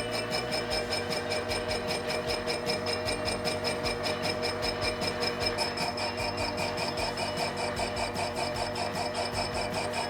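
Benchtop lathe running with a large 180 mm workpiece in the chuck: a steady hum with an even, rhythmic ticking about four or five times a second.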